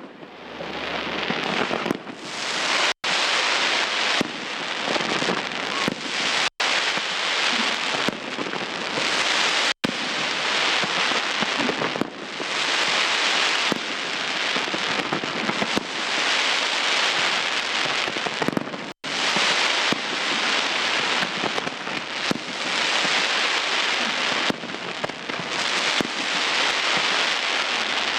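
Fireworks display: a dense, continuous crackling of many small pops, with the sound cutting out completely for an instant four times.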